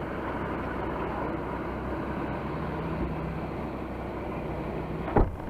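Off-road vehicle engine running steadily, with one sharp thump about five seconds in.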